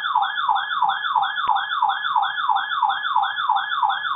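Electronic weather-radio alert siren warbling, its tone sweeping up and down about four to five times a second, sounding the alarm for an incoming warning. A single faint click comes about one and a half seconds in.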